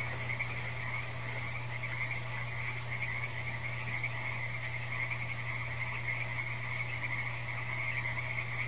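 A steady, high-pitched chorus of calling animals over a constant low hum.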